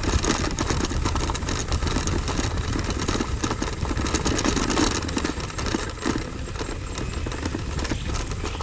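Bicycle rolling over a dirt road: tyres crunching and the bike rattling, with a low rumble throughout.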